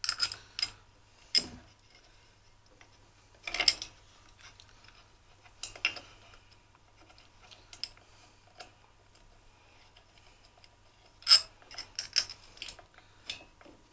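Irregular clicks, taps and knocks of hard plastic and metal parts being handled and pressed together by hand as a kerosene forced-air heater's motor end cover is fitted back onto its housing. A few sharper knocks stand out, the loudest about eleven seconds in.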